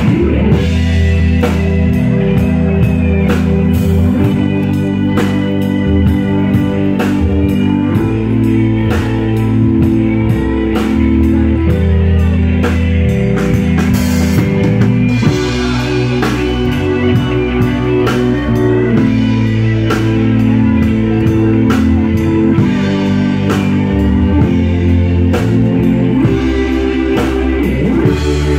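Live band playing an instrumental passage: keyboards and guitar over a heavy bass line and a steady drum-kit beat.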